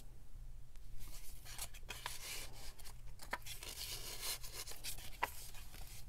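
Paper rustling and crackling as cards are handled and a page of a handmade paper journal is turned, with a few sharp little ticks of paper against paper.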